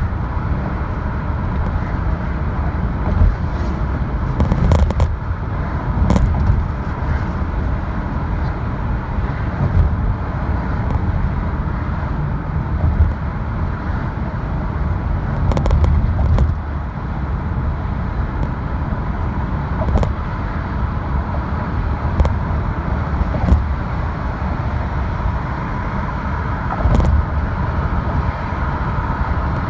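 Road noise of a car driving at highway speed, heard inside the cabin: a steady low tyre and engine rumble, broken by scattered short knocks.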